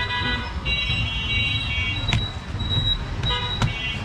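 Vehicle horns honking in street traffic over a steady low traffic rumble, with sharp knife chops into toddy palm fruit on a wooden block, one about halfway through and one near the end.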